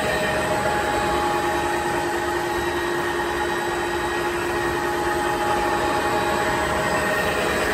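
DBFQD label slitting and rewinding machine running: a steady mechanical hum with several steady whining tones on top.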